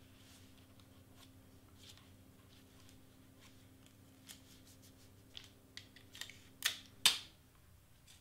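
Clear tape and cardstock being handled while taping paper pieces together from behind: after a few quiet seconds, a series of short sharp rips and crackles, the loudest about seven seconds in.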